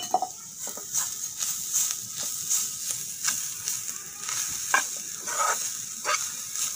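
Grated coconut frying in coconut oil in a metal pan, with a light sizzle, while a steel spoon scrapes and stirs it in quick strokes, about two or three a second.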